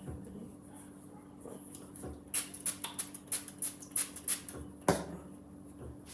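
Small pump spray bottle spritzing: a quick run of about ten short sprays, roughly four a second, then a single knock about five seconds in. A steady low hum runs underneath.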